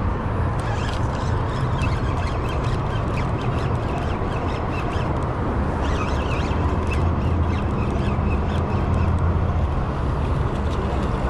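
Spinning reel being cranked steadily to bring in a small hooked fish, its faint ticking under a steady low rumble of wind on the microphone.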